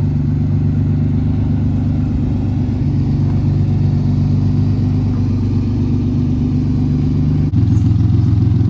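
1989 Ford Ranger's engine running steadily. About seven and a half seconds in it cuts abruptly to a slightly different, somewhat louder engine note.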